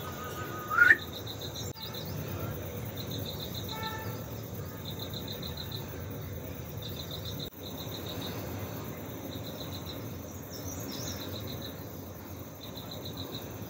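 Insects chirping in short pulsed trills high in pitch, a burst every one to two seconds, over a steady outdoor hiss. A brief, louder rising call sounds about a second in.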